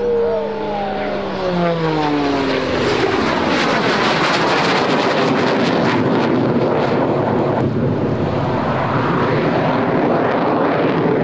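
Aircraft flying past: an engine tone glides down in pitch over the first couple of seconds, then the Alpha Jet's twin Larzac turbofans give a loud, crackling roar that holds steady.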